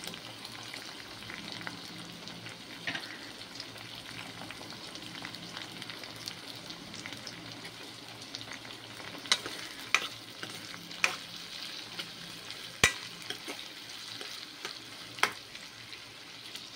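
Tomatoes, green chillies, shallots and curry leaves sizzling steadily in oil in a non-stick kadai. In the second half a metal spoon stirring them clinks sharply against the pan about five times.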